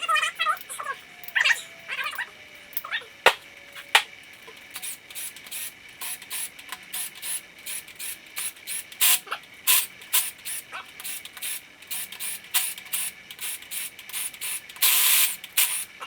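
Hand socket ratchet clicking in short runs while loosening the camshaft cap bolts on a 3.7 L Atlas inline-five cylinder head. A pet animal cries briefly near the start, and there is a short hiss near the end.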